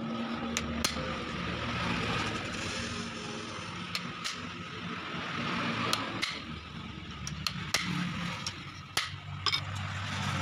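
About a dozen scattered, sharp metal taps, some in close pairs: a screwdriver driven like a punch against the lock nut on a Toyota Kijang's worm steering rack to tighten it after adjustment. A steady low hum runs underneath.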